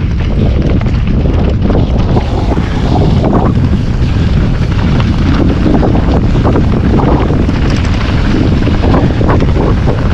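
Wind buffeting the microphone on a fast mountain-bike descent over rough ground, with a constant clatter of knocks and rattles from the bike and tyres hitting the trail.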